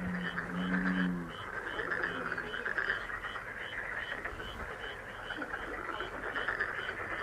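Frog chorus: a dense trilling chorus with a short high call repeating evenly about two to three times a second, and a low pitched croak in the first second or so.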